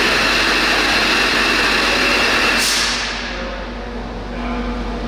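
Alstom Prima H3 hybrid shunting locomotive working with freight wagons: a loud, steady rushing noise with a high whine, which drops away sharply about three seconds in, leaving quieter running.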